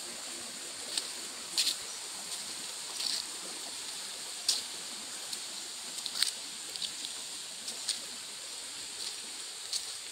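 Footsteps crunching through dry leaf litter at an irregular walking pace, over a steady background hiss and a high, steady insect drone.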